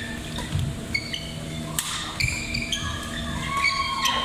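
Badminton doubles rally: a few sharp racket strikes on the shuttlecock with athletic shoes squeaking briefly and repeatedly on the court floor, echoing in a large sports hall.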